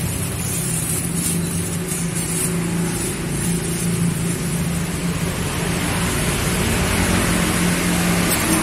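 Steady roadside traffic noise with a low engine hum from passing vehicles, and a faint rustle of a thin plastic bag being twisted and tied.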